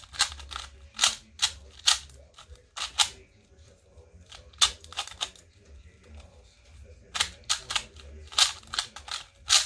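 Stickerless plastic 2x2 speed cube (MoFang JiaoShi MF2) being turned fast by hand: sharp plastic clicks as its layers snap round, coming in quick irregular clusters with short pauses between.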